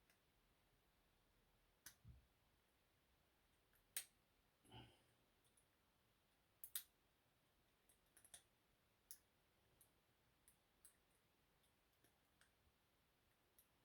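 Faint, irregular clicks of a lock pick and tension wrench working the pin tumblers of a Master 575 padlock, a dozen or so scattered ticks as pins are picked.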